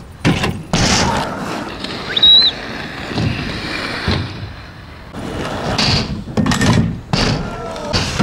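Skatepark riding: wheels rolling over ramps with sharp slams and clacks of landings and board impacts, a pair about a second in and a quick run of them near the end. A brief high squeak about two seconds in.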